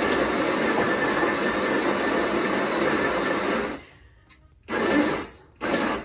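Sunbeam Barista Max's built-in burr grinder running steadily as it grinds coffee beans into the portafilter. It stops about four seconds in, then gives two short bursts near the end as more grounds are added.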